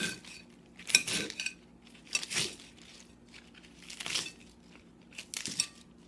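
Small knife slicing through crisp bok choy stalks against a ceramic plate: a short crunch about every second, five cuts in all.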